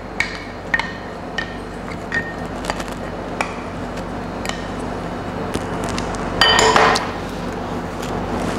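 Kitchen utensils clinking against a cooking pot and dishes: a handful of light, briefly ringing clinks, with a louder ringing clatter about six and a half seconds in.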